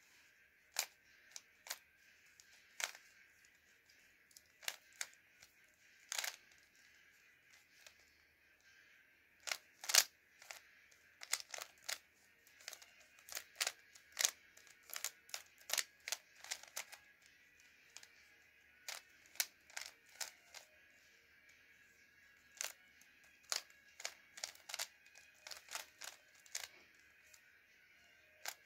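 Plastic 3x3 speed cube turned quickly by hand: irregular clicks and clacks as its layers snap round. Scattered at first, then coming in quicker flurries from about a third of the way in.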